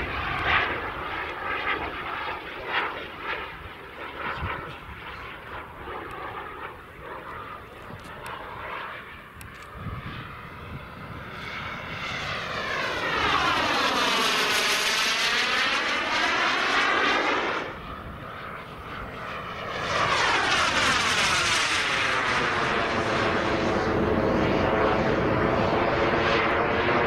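JetsMunt M210 gas turbine of a 1/5-scale RC model Dassault Rafale jet flying: a fainter, wavering rush at first, then two loud close passes about 12 and 20 seconds in. Each pass has a swirling, sweeping tone as the jet goes by, and the second holds on to the end.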